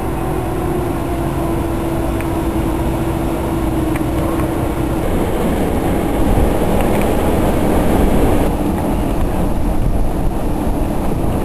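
Bombardier TRAXX class 186 electric locomotive and its passenger coaches rolling slowly through a station: a steady hum over the rumble of the train for the first five seconds or so, after which the hum drops away and the rumble of wheels on track grows a little louder.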